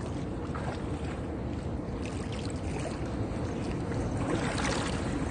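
Soft water splashes and sloshing around a hand-carved log dugout kayak as it is paddled, with a few faint paddle strokes over a steady rush of wind on the microphone.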